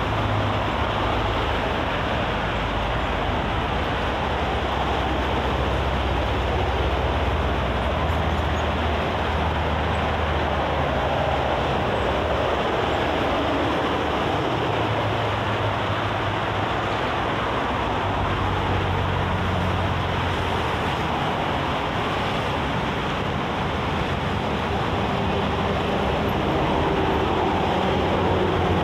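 Steady expressway traffic: tyres and engines of passing cars and trucks, with a low engine drone that swells and fades as heavier vehicles go by, growing louder near the end as a container truck approaches.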